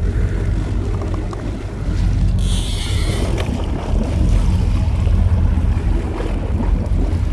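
Boat engine running with a steady low rumble under water and wind noise, with a brief hiss for about a second some two and a half seconds in.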